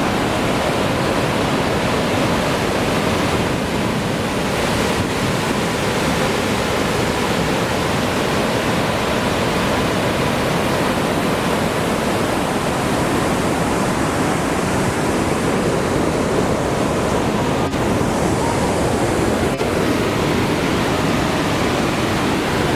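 Tannforsen waterfall's large volume of water pouring and crashing in a loud, steady, unbroken rush.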